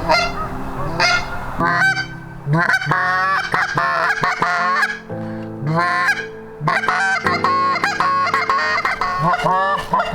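Canada goose call blown in rapid runs of short honks and clucks to bring geese in, with brief pauses between runs.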